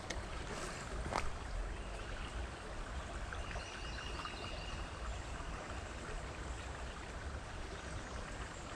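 A small creek's water running steadily, with a couple of sharp clicks about a second in.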